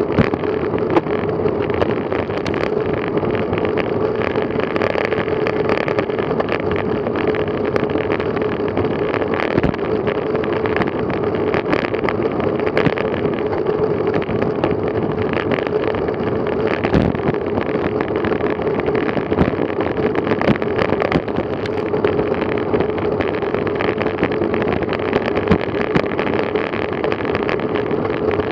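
Road bicycle riding at about 20 mph: a steady rush of wind and tyre noise with a constant hum, and many small knocks and rattles from road bumps shaking the bike-mounted camera.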